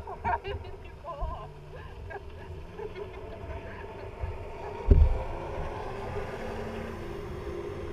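Jet ski engines on open water, one running slowly while another passes at speed, with a sudden low thump about five seconds in.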